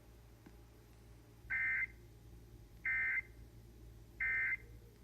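Emergency Alert System end-of-message code over FM radio: three short, identical buzzy digital data bursts about a second and a third apart, the first about a second and a half in, marking the end of the severe thunderstorm warning.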